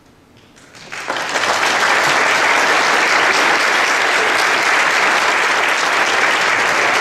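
An audience breaks into applause about a second in, after a near-quiet moment, and keeps clapping steadily.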